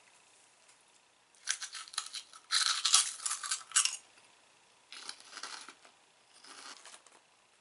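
A person chewing a light, airy rice cracker (senbei): several bursts of crunching starting about a second and a half in, loudest about three seconds in, then smaller crunches.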